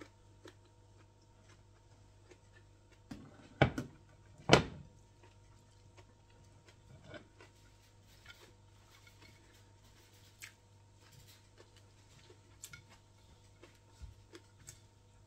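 A few sharp knocks a few seconds in, the two loudest about a second apart, then only faint scattered clicks over a steady low hum, the sound of dishes and hands being handled during a meal.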